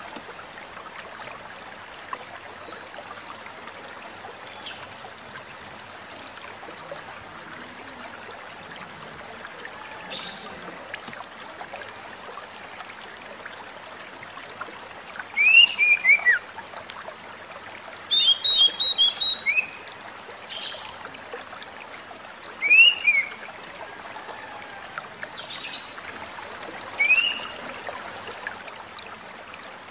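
Oriental magpie-robin calling: short, sharp downslurred whistles and one quick run of rapid notes, coming in the second half over a steady background hiss.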